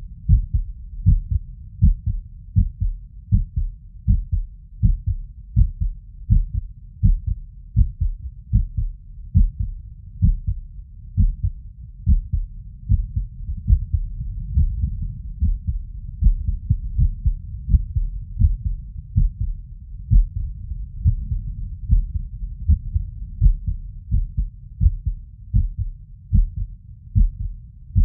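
Heartbeat heard through a stethoscope's diaphragm over the tricuspid valve area after exertion: a rapid run of low, dull lub-dub thumps. The beats come at uneven spacing, the sign of an arrhythmia.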